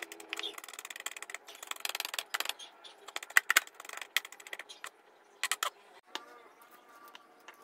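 Broad-bladed kitchen knife rapidly chopping garlic cloves on a bamboo cutting board: a fast run of knocks for the first two and a half seconds, then slower, scattered taps that die out about halfway through.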